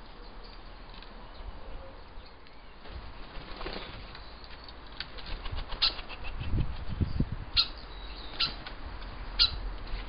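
Bird wings flapping at a bird table as a jackdaw comes in to land on the feeding tray: a cluster of soft low wingbeat thuds a little past the middle, followed by several sharp clicks about a second apart.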